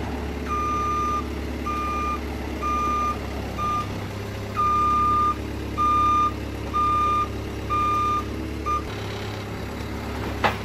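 A vehicle's reversing alarm beeping roughly once a second over a running engine. The engine hum drops near the end, and a sharp click follows just before the end.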